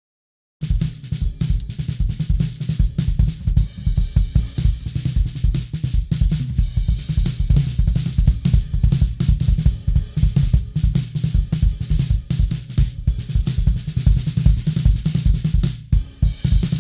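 Mixed drum kit recording playing back: kick, snare, hi-hats and cymbals in a fast, busy groove, starting abruptly about half a second in.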